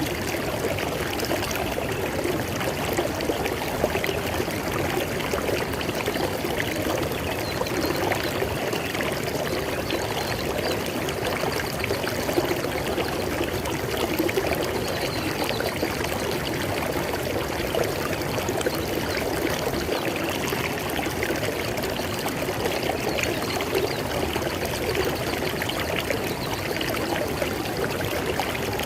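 River water flowing over stones: a steady, even rush with small splashes and gurgles running through it.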